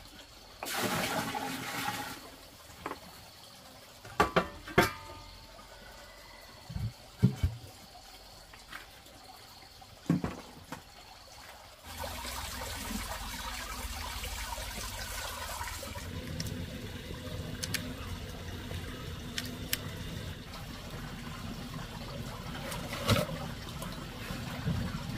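Water splashing and trickling, with scattered sharp clicks and knocks in the first half. About halfway through a steady rushing sound sets in and carries on.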